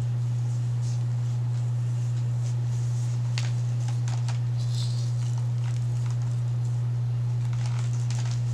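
A steady low electrical hum, with faint rustles and soft ticks of hair strands being handled.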